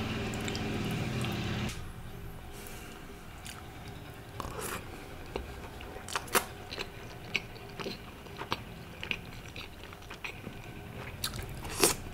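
A machine's steady droning hum cuts off abruptly after about a second and a half. Close-up eating sounds follow: chewing and biting, with scattered crisp crunches and wet mouth clicks, the loudest bite near the end.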